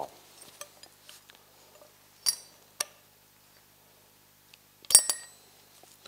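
Small stainless steel screws and the metal bogie wheel hub clinking as they are handled and fitted: a clink about two seconds in, a light tick just after, and a louder double clink with a short ring about five seconds in.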